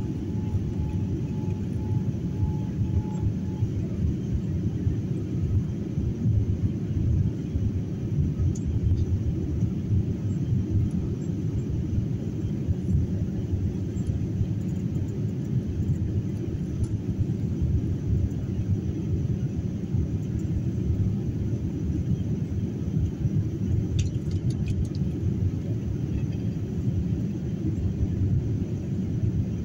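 Jet airliner cabin noise in flight during the climb: a steady low rumble of engines and airflow. A faint thin whine stops about three seconds in.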